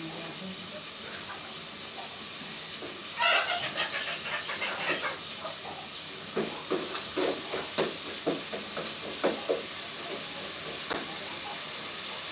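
Steady sizzling hiss of food frying in a cooking pot over the fire. Irregular sharp knocks of a utensil against the pot come through from about six seconds in.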